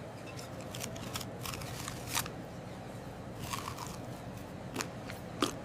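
Eating sound effect: irregular crunchy bites and chewing clicks over a steady hiss.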